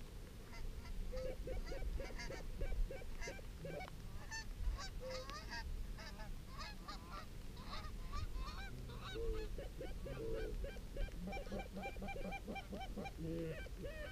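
Canada geese honking: many short, overlapping calls from a flock, growing busier in the second half.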